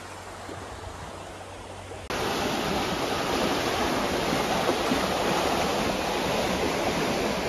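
Steady rushing wind noise on the microphone of a camera riding along on a moving bicycle. It jumps abruptly louder about two seconds in and then holds steady.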